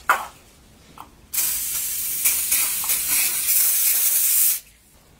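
Aerosol can of Ballistol universal oil spraying in one steady hiss of about three seconds, starting a little over a second in and cutting off suddenly. A sharp click comes just at the start.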